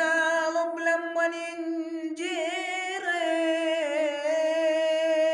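Unaccompanied solo voice singing in Arabic, holding one long drawn-out vowel with wavering vocal ornaments about two and four seconds in.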